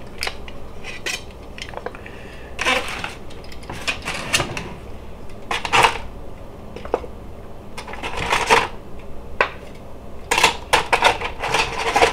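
Metal tongs clinking against a plate and the air fryer basket, mixed with aluminium foil crinkling, in scattered bursts of clatter as cooked short ribs are lifted out onto the plate.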